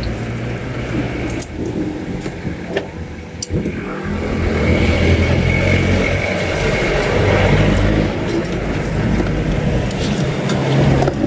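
A motor vehicle engine running close by, its low rumble growing louder from about four seconds in. Under it, oil sizzles in a deep-frying wok, with a few sharp metal clicks from tongs and a wire strainer.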